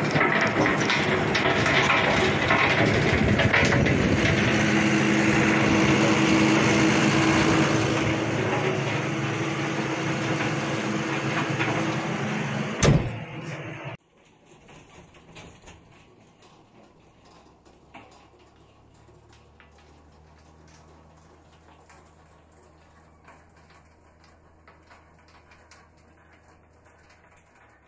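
A John Deere 6210R tractor's diesel engine running under load as it pulls an 8 m land roller over a stubble field, loud and noisy close up. After a sharp knock about 13 seconds in, the sound drops suddenly to a faint, steady, distant tractor hum.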